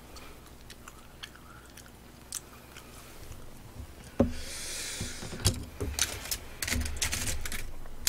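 Close-miked eating sounds: scattered mouth clicks and smacks of chewing. There is a brief hiss about halfway through, then a quick run of clicks in the second half as a chopstick picks at roast chicken on aluminium foil.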